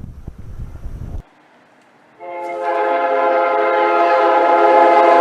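Wind buffeting the microphone stops abruptly. About two seconds in, an Amtrak locomotive's Nathan K5LA five-chime air horn starts blowing a long, steady chord that grows louder as the train approaches.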